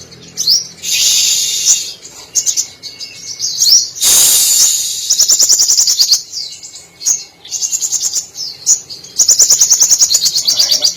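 Sunbird (sogon) singing: rapid high-pitched trills and sharp chipping notes in repeated bouts, with a loud harsh burst about four seconds in. Its song carries imitations of canary, cililin, sparrow and lovebird phrases.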